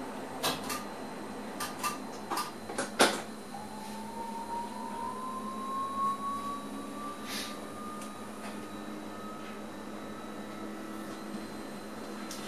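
Inside an electric train's driver's cab: several sharp clicks, the loudest about three seconds in. Then an electric whine rises slowly in pitch for several seconds and levels off, the traction motors picking up speed as the train accelerates. A faint steady high hum of cab electronics runs underneath.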